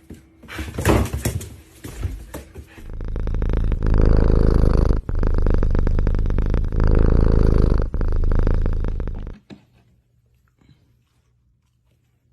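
A cat purring loudly for about six seconds, then stopping abruptly.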